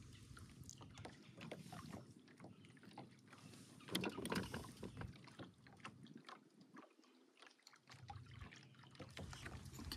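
Faint water lapping against a small boat's hull, with scattered light clicks and knocks.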